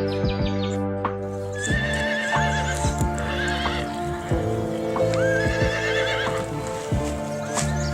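A horse whinnying twice, a wavering call about two seconds in and again about five seconds in, over steady background music.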